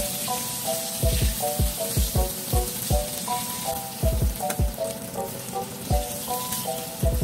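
Hot oil sizzling steadily around potato-starch-coated chicken thighs frying in a pan. Under it runs background music with short plucked notes over a steady low beat.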